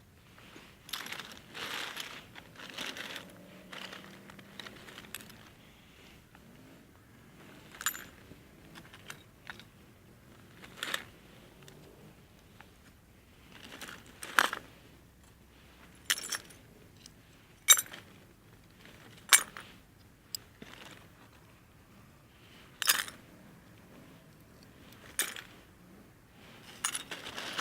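A series of sharp metallic clicks and clinks at uneven intervals, a busy cluster in the first few seconds, then single louder clicks every couple of seconds.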